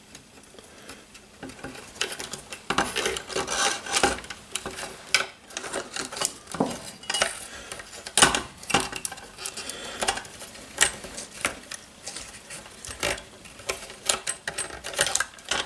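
Irregular light clicks and knocks of small RC helicopter parts being handled as the main gear, with the tail drive belt looped around it, is worked into the frame.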